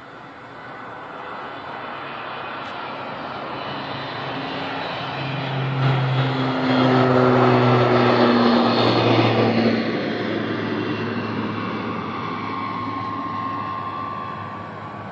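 ATR 42-500 twin-turboprop airliner at take-off power, rolling down the runway, lifting off and climbing away. The propeller drone builds, is loudest for a few seconds around the middle as the plane passes, then fades.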